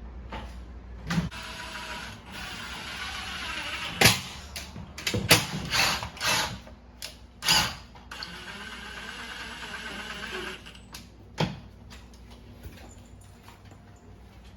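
A small power tool, drill-like, whirs in a steady run of several seconds, with a few sharp knocks and clatters of parts being handled.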